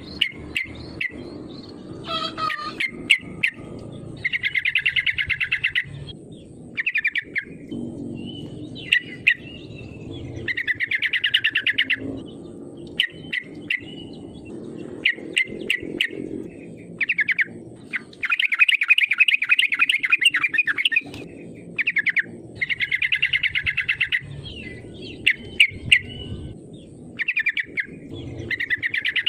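Yellow-vented bulbul singing vigorously: bursts of rapid chattering notes a second or two long, repeated every few seconds, with short sharp single notes in between, over a low steady background noise.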